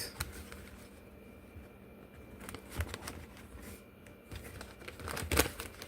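Paper and packaging handled in an opened shipping box: soft rustling and light taps, with a louder rustle about five seconds in.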